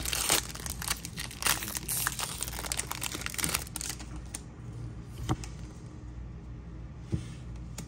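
Foil wrapper of a Pokémon TCG booster pack crinkling as it is torn open, for about four seconds. Then quieter handling of the cards, with a couple of small clicks.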